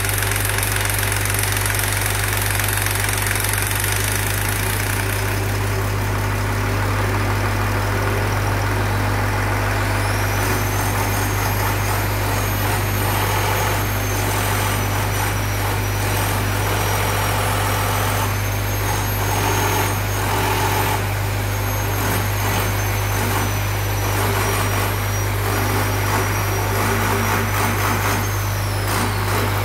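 Diesel injection pump test bench running with an inline injection pump mounted on it, a steady deep hum. A high thin whine comes in about ten seconds in and stops just before the end, and a hiss in the first few seconds fades away.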